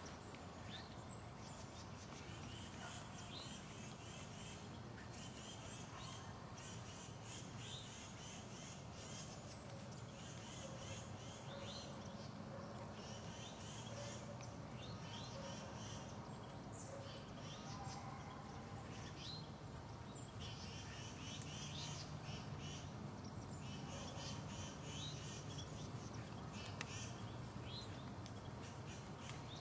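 Wild birds calling in woodland: repeated short chirps and chattering runs, some with quick falling notes, over a faint steady low hum.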